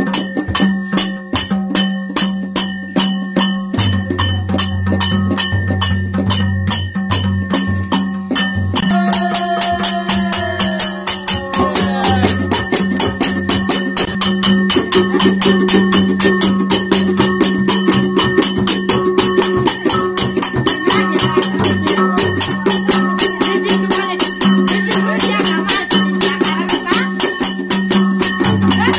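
Nepali folk music for dancing: madal barrel drums played by hand in a quick, even rhythm, with a rattling, jingling sound over the beat.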